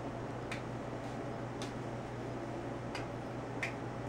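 A fork's tines stabbing into a raw sweet potato, giving about four faint, sharp ticks spread a second or so apart, over a low steady hum.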